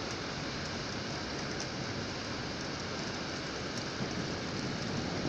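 Steady rain falling on a street and nearby surfaces, an even hiss of rain.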